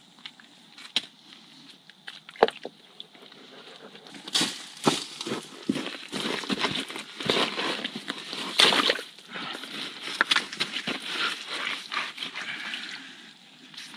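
A few sharp knocks of stones being handled, then from about four seconds in a long run of irregular sloshing and splashing as boots tramp through shallow muddy spring water and a large rock is set down in it.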